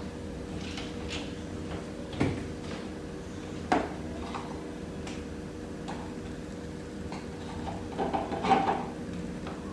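Kitchen items and fittings being handled while groceries are put away: a sharp knock about two seconds in, another near four seconds, and a short clatter near the end, over a steady low hum.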